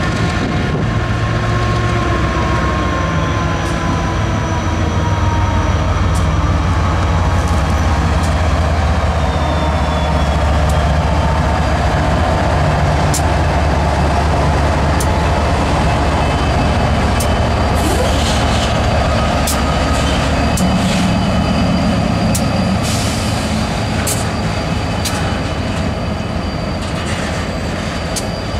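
Norfolk Southern diesel freight locomotives passing close by, their engines' deep drone filling the first two-thirds and slowly dropping in pitch as they go by. About two-thirds through the drone fades and the following autorack cars take over, with the wheels clicking sharply over the rail joints and a faint, thin high whine near the end.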